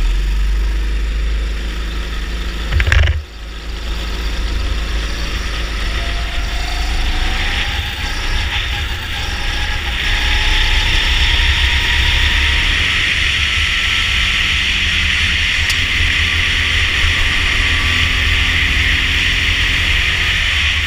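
Rental kart engine catching and then running steadily, with a brief loud burst about three seconds in. It runs on as the kart drives out, and wind rush over the onboard camera grows louder from about ten seconds in.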